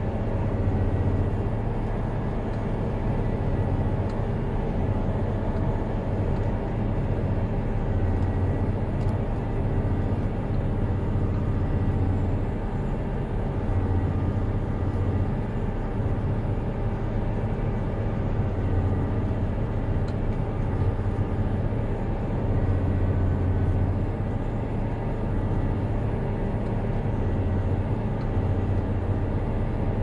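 Challenger MT975 articulated tractor's engine running steadily under heavy load while pulling a deep ripper through the ground, a constant deep drone.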